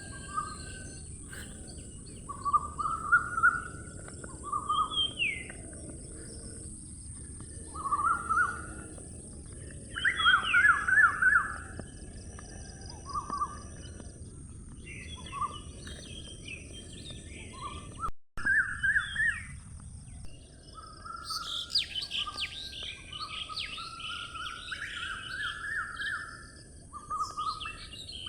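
Small birds chirping and twittering in short repeated phrases over a steady high hiss, cutting out completely for a moment about eighteen seconds in; the chirping gets busier after that.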